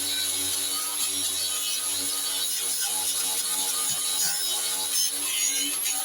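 A worn wire brush spinning on a power tool, scrubbing old paint off the steel blades of an MGB cooling fan. The motor runs steadily under a rough, continuous scraping.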